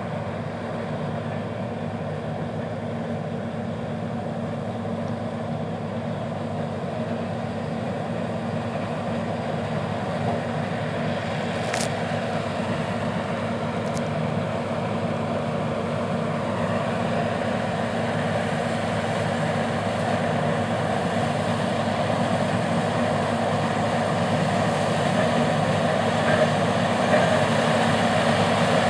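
John Deere 4420 combine running steadily while harvesting corn, a constant engine drone that grows gradually louder. Two short clicks about twelve and fourteen seconds in.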